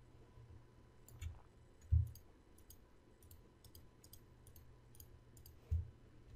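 Computer mouse clicking: a scattered series of faint, sharp clicks, with three dull low thumps on the desk or microphone, the loudest about two seconds in.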